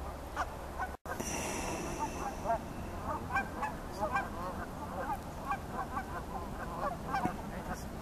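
Ducks calling on the water: many short nasal calls, rapid and overlapping, starting just after a brief cut-out about a second in.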